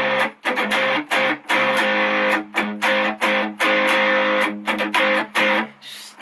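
Solo guitar strummed in a choppy rhythm, each chord cut short before the next stroke, with no singing: the opening of a song.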